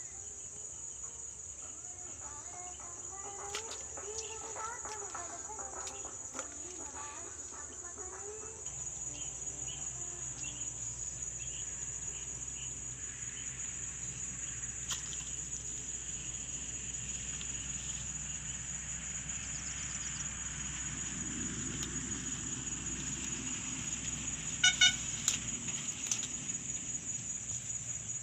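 Outdoor ambience: a steady high-pitched drone like insects, with a chicken calling a few seconds in and a couple of sharp clicks near the end.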